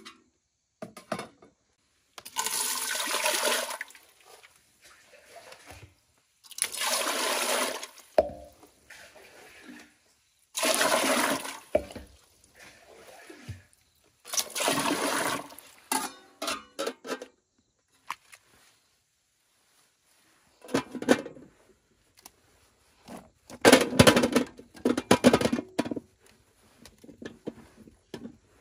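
Water being poured or splashed in four separate rushes of about a second and a half each, roughly four seconds apart, followed near the end by a rougher cluster of splashes.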